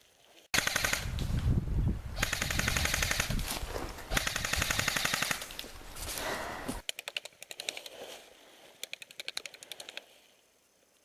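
Airsoft electric guns firing long full-auto bursts, a rapid string of clicks over a loud low rumble, starting about half a second in. About 7 s in the rumble stops and the fire turns into short strings of separate shots that die away around 10 s.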